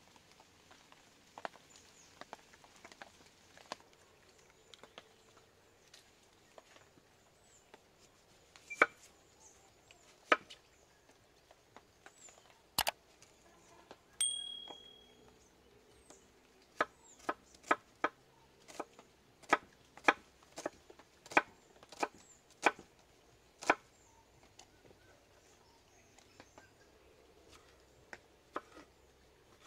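Kitchen knife cutting onion and tomato on a wooden board: sharp knocks of the blade on the wood, scattered at first, then a steady run of about two a second in the middle. A short high tone sounds once, about halfway through.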